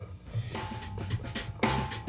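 Background music: a drum-kit beat with a bass line, coming in softly from silence just after the start and building.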